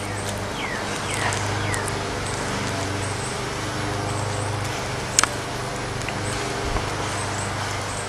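Eastern gray squirrel cracking sunflower seed shells right at the microphone: scattered sharp clicks and crunches, one louder crack about five seconds in. A steady low hum runs underneath, and a few short bird chirps come about a second in.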